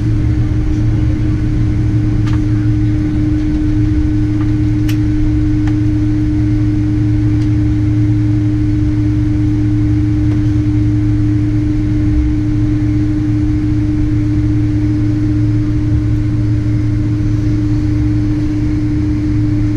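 Steady cabin drone of a Boeing 767-300ER taxiing, with its engines at idle. An even hum holds one pitch throughout, and there are a few faint clicks in the first few seconds.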